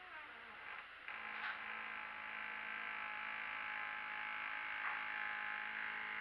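Door hinge creaking as the door is slowly swung shut: a few short wavering squeaks, then from about a second in a long, steady, buzzing groan with many overtones.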